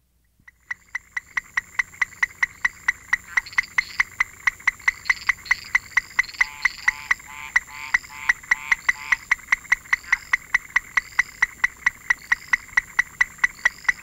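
Sooty grass frog (Leptodactylus melanonotus) calling at close range: a fast, even series of short, sharp notes, about four a second. Occasional higher rising chirps are mixed in, over a thin steady high tone.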